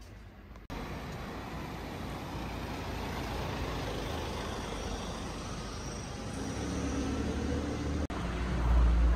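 Cars driving along a town street: steady tyre and engine noise, with a low engine rumble growing louder near the end.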